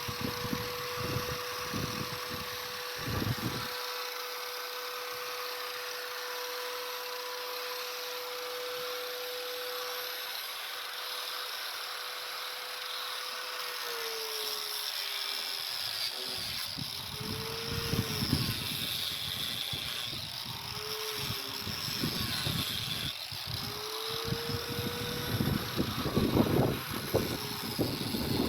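Power grinder grinding out the mortar from brick joints. Its motor whines steadily for several seconds, then repeatedly sags in pitch and recovers as the disc bites into the mortar, with gritty grinding noise that is loudest near the end.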